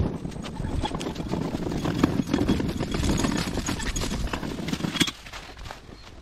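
Footsteps crunching and rustling through dry fallen leaves and grass, close to the microphone with a low rumble of handling noise; the sound drops off about five seconds in.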